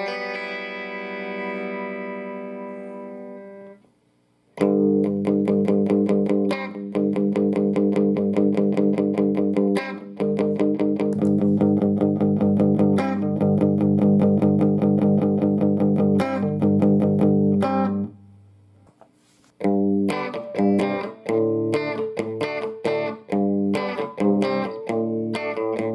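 Electric guitar played through a Fender all-tube combo amp: a chord rings out and fades, then strummed chords ring on for over ten seconds, and after a short pause come shorter, choppier chord stabs.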